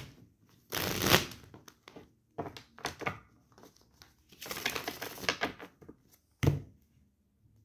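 A deck of tarot cards shuffled by hand in three bursts of about a second each, followed by a short sharp knock near the end.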